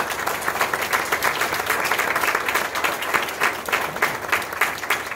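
Audience applauding: many people clapping at once, a dense, steady patter of overlapping claps.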